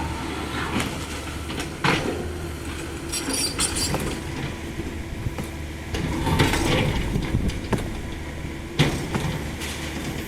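CAT 305.5E2 mini excavator's diesel engine running steadily, with the bucket knocking and scraping through broken masonry rubble: several knocks and clinking, scraping spells, the sharpest knock near the end.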